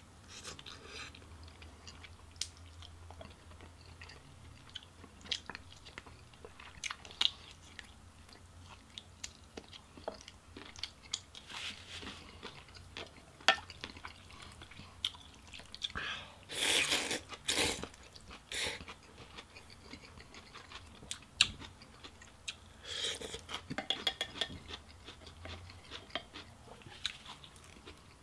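A person eating noodle soup: steady chewing with many small clicks of chopsticks and a spoon against the bowls, and longer slurping sounds a little past halfway and again later.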